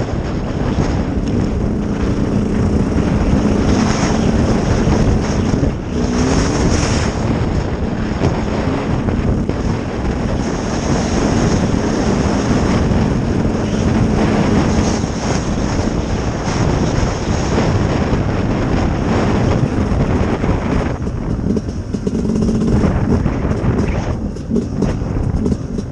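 Sherco SE-R 300 two-stroke enduro motorcycle engine running under way, its pitch rising briefly about six seconds in and easing off twice near the end, with wind across the microphone.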